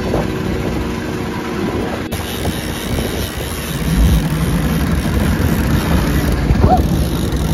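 Boat engine running steadily as the boat moves, with a low rumble under wind and water noise.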